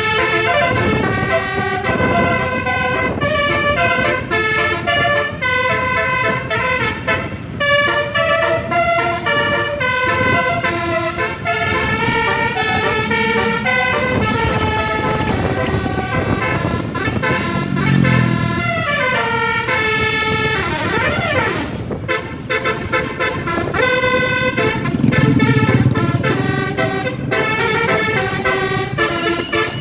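Tour bus telolet horn, a set of multi-tone air horns, playing a melody of chords that step from note to note throughout, with the pitch sliding down and back up about two-thirds of the way through. Bus engine noise lies underneath and swells twice in the second half.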